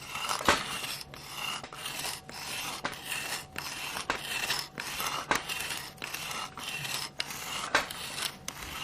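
Repeated rasping, scraping strokes, about two a second, with sharp clicks among them, like something being rubbed or filed back and forth.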